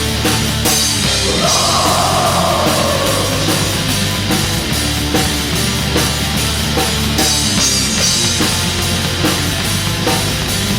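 Black metal song: loud distorted guitars over dense, driving drums with crashing cymbals.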